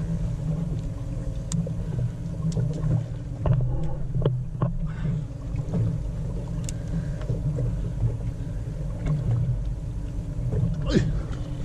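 Fishing boat's engine running steadily with a low hum, with a few scattered light knocks and clicks on board.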